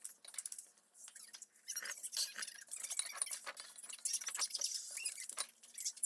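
Irregular quick clicks, smacks and rustles of eating and handling food close to the microphone.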